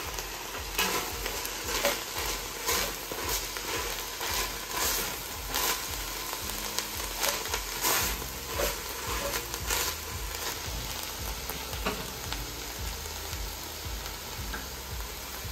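Minced beef sizzling as it fries in an enamelled cast-iron pot, with a wooden spoon stirring and scraping through it in repeated, irregular strokes.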